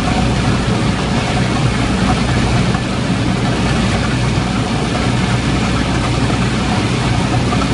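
Diesel engine of a small rice combine harvester running steadily as it cuts rice, heard close up from the operator's seat.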